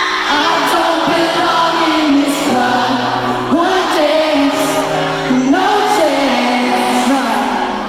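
A live pop concert heard from the audience: a band playing with a singer singing over it.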